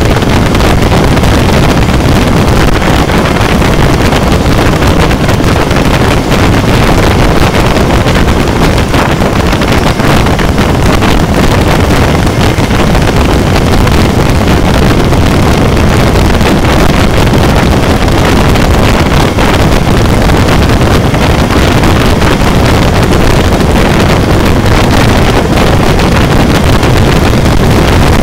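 Heavy wind buffeting on the microphone of a Honda CB400 motorcycle at steady highway cruising speed, mixed with the bike's engine running evenly. The noise is loud and unbroken.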